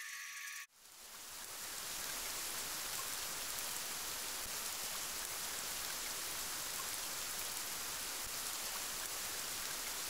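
A plucked-string tune cuts off under a second in, then steady rain fades in and holds as an even hiss.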